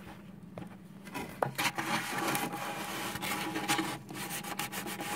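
Edge of an old plastic gift card scraping and rubbing along grid paper, pressing it into a crease against the dollhouse wall. A few light clicks at first, then steady scratchy rubbing from about a second and a half in.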